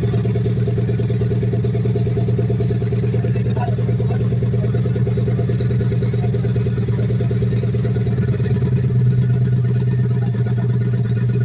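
Motorcycle engine idling steadily, rising a little in level about nine seconds in.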